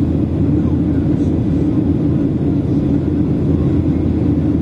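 Steady cabin drone of an airplane climbing after takeoff: an even rumble of engines and airflow with a constant low hum.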